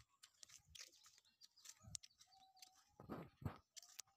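Near silence: faint outdoor quiet with a few soft clicks and thumps, and a faint, briefly held whistle-like call about two seconds in.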